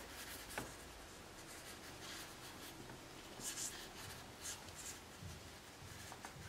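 Faint rustling and rubbing of cotton fabric as it is folded over by hand, with a few soft brushing sounds and a small tick about half a second in.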